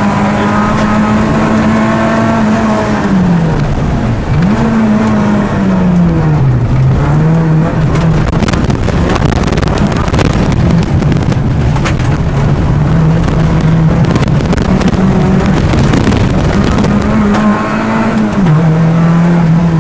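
Peugeot 106 rally car's 1.6-litre 16-valve four-cylinder engine working hard on a stage, heard from inside the cabin, with the revs dropping and climbing again several times as it shifts gear and brakes. Tyre and road noise runs underneath, with scattered sharp knocks in the middle stretch.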